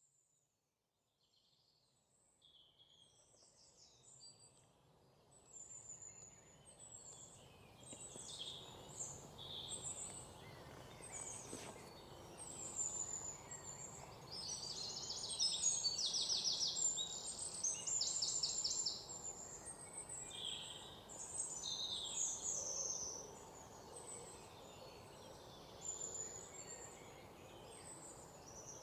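Several songbirds chirping and singing, with short calls and a couple of rapid trills over a steady background hiss. The chorus fades in over the first few seconds and is busiest around the middle.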